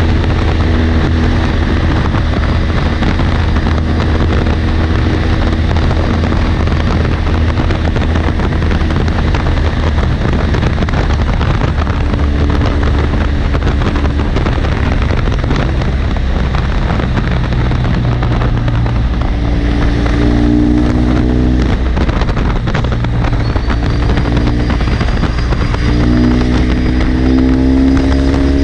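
BMW GS Adventure motorcycle's boxer-twin engine running at road speed under heavy wind noise on the microphone. The engine note climbs twice, about two-thirds of the way through and again near the end, as the bike accelerates.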